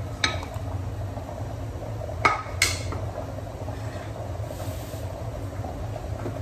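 Kitchenware clinking against a cooking pot as potatoes are tipped into the curry: a faint click just after the start, then two sharp clinks about half a second apart around two seconds in. A steady low hum runs underneath.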